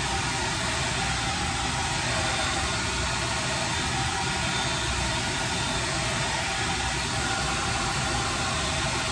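Handheld hair dryer blowing hair dry: a steady rush of air with a faint motor whine, unchanging throughout.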